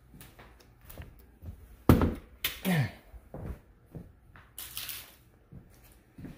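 Handling noise from a phone being moved around: scattered clicks, knocks and rustles, with a sharp thump about two seconds in and a burst of rustling a little before the end.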